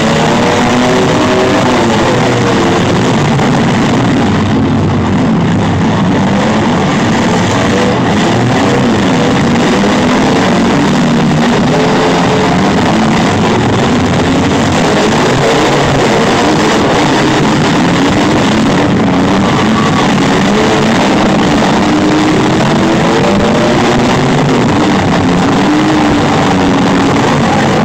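Several demolition derby cars' engines revving and running hard at once, the sound loud and distorted, with music playing over it.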